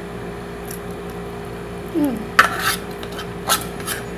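Chewing a mouthful of boiled egg, then from about halfway through several sharp clinks of a metal fork against dishware, a few in quick succession.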